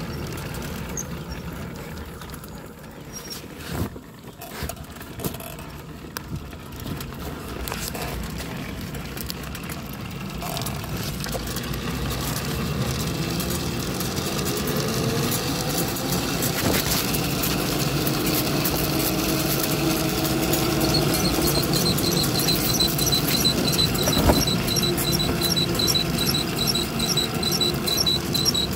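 Bicycle trailer rolling along, a steady rumble with knocks and rattles that grows louder. From about two-thirds of the way through, a quick, evenly repeating high squeak comes from the moving trailer.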